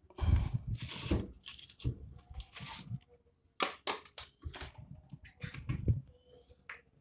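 Irregular knocks, scrapes and clatter as a Suzuki Carry front shock absorber and its coil spring are wiggled and pulled by hand to work the unit free of its mount.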